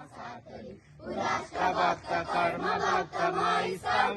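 A large group of young voices chanting in unison in loud, rhythmic phrases, starting about a second in after some faint talk.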